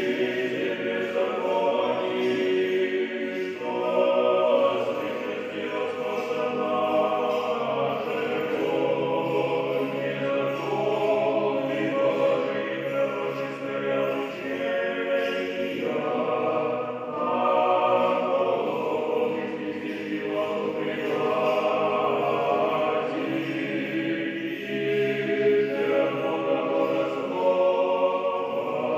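A choir singing slow music in long held notes, with the chords changing every few seconds.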